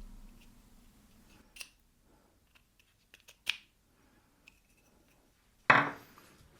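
Parkside pillar drill's motor humming low and dying away as it spins down. Then a few light clicks of handling, and one louder knock near the end.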